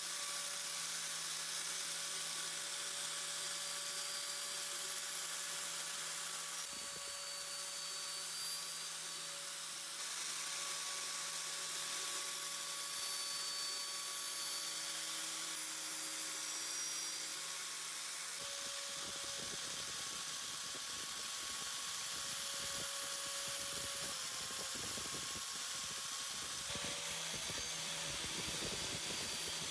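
Small electric power tool running steadily with a constant hum and hiss, its sound shifting a few times as the work goes on.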